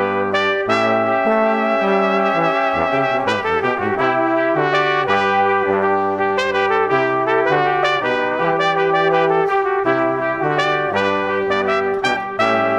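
Instrumental background music: sustained pitched notes and chords changing every second or so, over regular sharp percussive hits.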